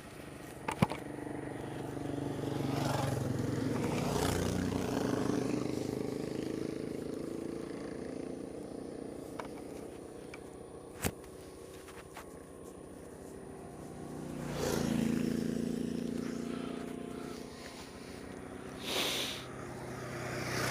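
Honda Z125 Monkey's small single-cylinder four-stroke engine idling while two other vehicles pass, each swelling up and fading away, the first a few seconds in and the second about three-quarters of the way through. A couple of sharp clicks.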